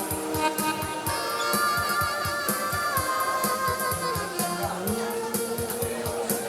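Upbeat Korean trot-style music with a steady drum beat and a held melody line that wavers in pitch, moving to new notes about three and five seconds in.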